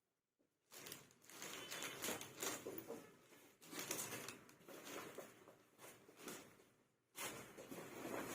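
Rustling and crinkling handling noise of a green screen kit being unpacked, with irregular bursts and a short dropout near the end.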